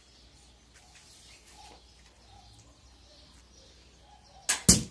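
A homemade wooden pulley crossbow fires and its arrow strikes the target board: two sharp cracks about a fifth of a second apart near the end. Before them, only faint bird calls.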